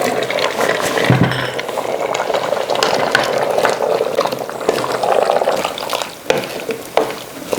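Potatoes being stirred into a thick, sizzling lamb and tomato curry in a pot, a spoon scraping through the gravy with a low thump about a second in and scattered knocks against the pot.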